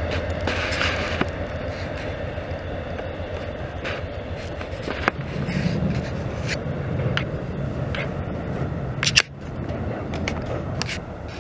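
Train rolling past: a steady rumble with sharp, irregular clicks and scrapes from the wheels on the rails. The loudest crack comes about nine seconds in, then the sound drops.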